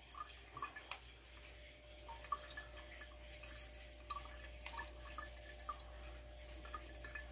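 Fermented fruit juice dripping from a squeezed net bag of pulp through a plastic funnel into a plastic jug: faint, irregular drips.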